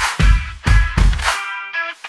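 Background music with a heavy, steady beat and pitched guitar or synth lines.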